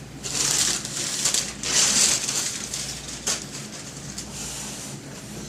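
Cardboard box and its packing being handled and pulled open: a few rustling, crinkling scrapes in the first two seconds or so, then one sharp click a little after three seconds.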